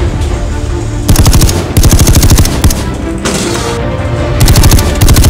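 Several bursts of rapid automatic rifle fire, starting about a second in and again near the end, over a tense film score.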